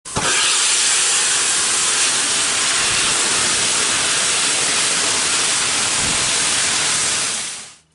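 Loud, steady hiss of escaping steam that starts abruptly and fades out near the end.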